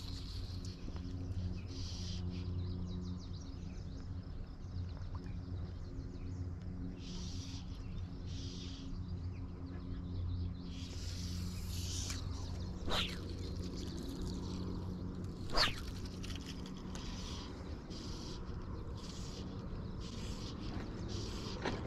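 Outdoor riverside ambience: a steady low hum, short high twittering sounds that come and go, and two sharp clicks about three seconds apart in the second half.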